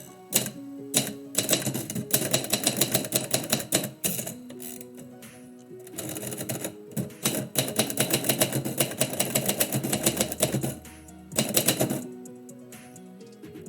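Typewriter keys being struck in quick runs of clacks, in two long bursts with a pause between and a short burst near the end, over background instrumental music with steady sustained notes.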